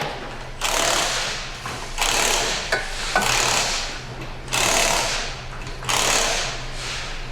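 Power tool run in five bursts of about a second each, with short pauses between them.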